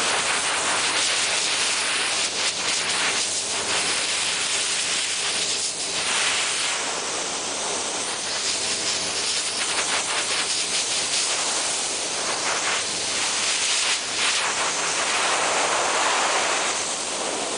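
Steady hiss of a spray nozzle spraying a freshly chrome-silvered lure.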